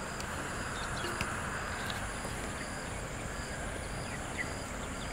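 Quiet outdoor background: a steady high insect drone with a few faint soft clicks.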